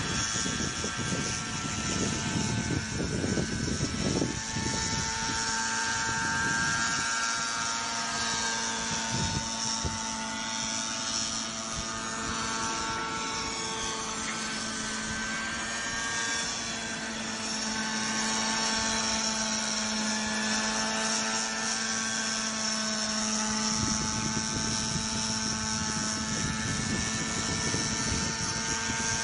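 Radio-controlled model helicopter's engine and rotors running in flight, a steady whine whose pitch drifts slowly up and down. A low rumble joins in at the start and again near the end.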